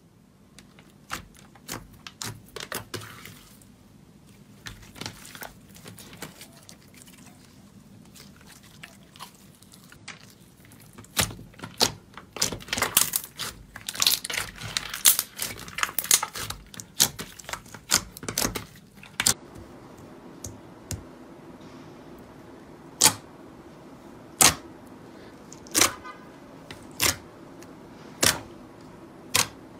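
Hands pressing and squeezing glossy slime, making crisp clicks and pops. The pops come thick and loud through the middle, then as single sharp pops about every second and a half near the end.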